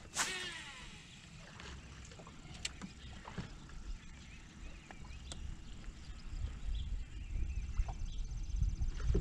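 A fishing cast: the rod swishes and the casting reel's spool whirs, its pitch falling as the line pays out. Scattered small reel clicks follow as the lure is worked back, and a low rumble builds over the last few seconds.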